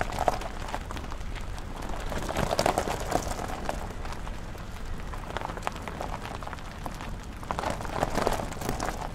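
A car driving: a steady low rumble under dense, irregular crackling, which swells about two and a half seconds in and again near the end.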